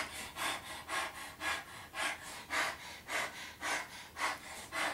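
A woman imitating a dog's panting, quick breathy pants in a steady rhythm of about two a second.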